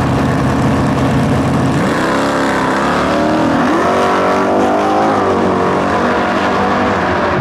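Two muscle-car V8 engines at full throttle, launching off the drag-strip start line and accelerating away. Their pitch climbs, drops back at each gear change, then climbs again.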